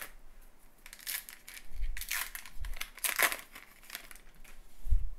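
Foil wrapper of a Topps Gypsy Queen baseball card pack crinkling and tearing as it is ripped open, in several crackling bursts, with a few soft handling bumps.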